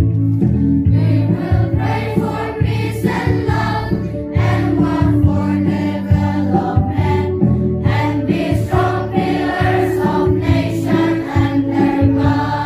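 Choir singing a school anthem together over musical accompaniment.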